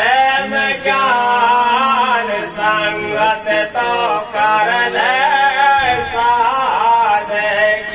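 Men singing a Hindi devotional bhajan together, with long held lines that glide up and down in pitch.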